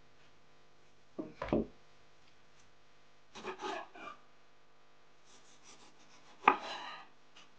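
Kitchen knife slicing through a persimmon on a wooden cutting board: a few separate short cutting strokes, each ending with the blade tapping the board, the sharpest about six and a half seconds in. A dull thump comes about a second and a half in.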